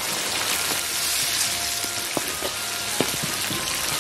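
Chili bean paste, Sichuan peppercorns and hotpot seasoning base sizzling in hot oil in a wok as they are stir-fried, with a steady hiss and scattered clicks of the stirring.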